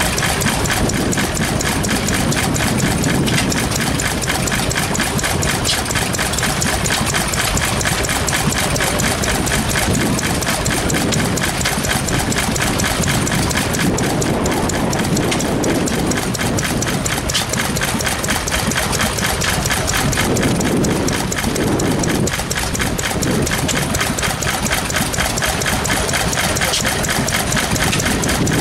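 Sendling single-cylinder stationary engine running steadily with an even, rapid mechanical beat.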